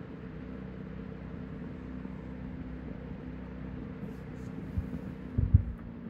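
1941 Emerson 16-inch table fan with aluminum blades running: a steady motor hum over the rush of moving air. A few low thumps come near the end.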